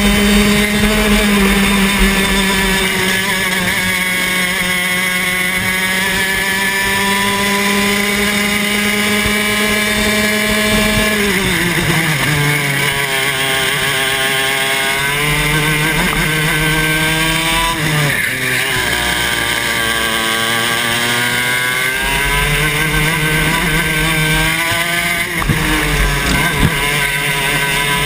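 Club 100 TKM 115cc two-stroke kart engine heard onboard, held at high revs at a steady pitch, then dropping sharply about a third of the way in as the driver lifts off. After that it picks up, dips and climbs again several times through the corners.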